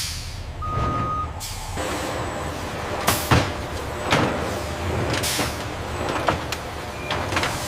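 Heavy truck engine running with a steady low rumble, broken by several short air hisses, the strongest about three seconds in. A brief beep sounds about a second in.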